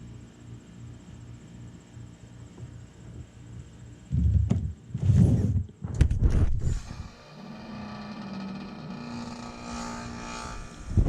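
1996 Bryant heat pump ending a defrost cycle: a steady low hum, then about four seconds in several loud whooshes of refrigerant as the reversing valve shifts back over, after which the unit settles into a steady running sound again.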